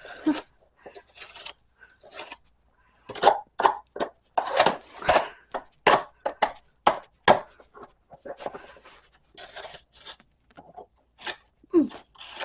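Ice and packed snow on a doorstep being chipped and scraped away by hand, a string of short, irregular scrapes and crunches with one longer scrape near the end.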